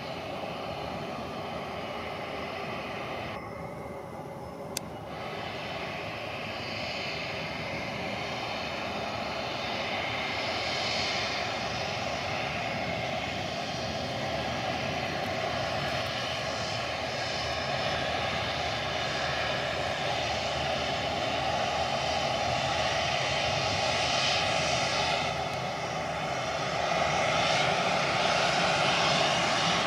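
Jet airliner engines running on the runway, a steady rumble and whine that grows louder in the last few seconds as the jet comes close. There is a single sharp click about five seconds in.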